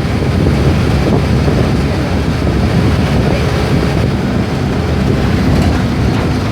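Mercedes-Benz OF-1418 bus's diesel engine running steadily, a low drone mixed with road and wind noise.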